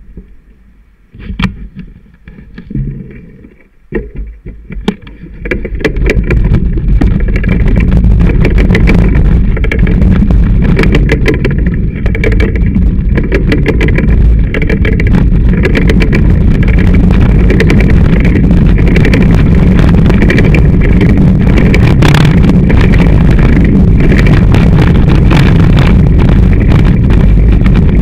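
Bicycle riding along a trail heard through a handlebar-mounted camera: a loud, steady rumble of wind and vibration with constant clicking and knocking from the camera mount. The mount is rattling for lack of cushioning. A few separate knocks come first, then the rumble sets in about five seconds in as the bike gets under way.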